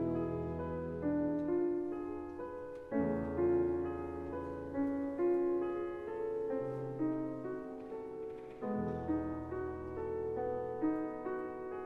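Slow piano music: single notes and chords struck about once a second and left to ring.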